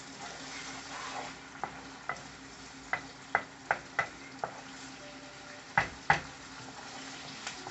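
Chopped onion and green chilies frying in hot oil in a pan, a steady sizzle, with a spatula stirring and knocking against the pan about ten times, the loudest two knocks close together about six seconds in.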